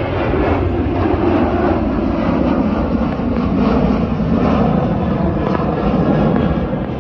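Boeing 737 jet airliner climbing out after takeoff, its twin turbofan engines giving a loud, steady rumble that wavers slightly in strength.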